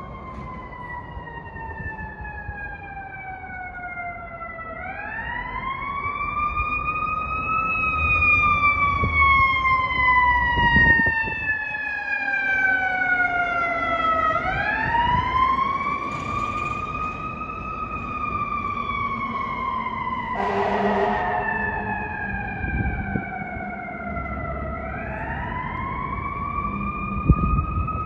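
Fire engine's mechanical siren winding up three times, each time rising quickly and then slowly sliding back down in pitch. About two-thirds of the way through comes one short horn blast, with the truck's engine rumbling underneath.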